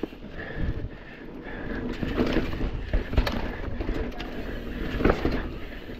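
Mountain bike riding down a rocky dirt singletrack: tyres rolling over dirt and stones with a steady rumble, and the bike rattling, with sharp knocks over rough ground around three and five seconds in.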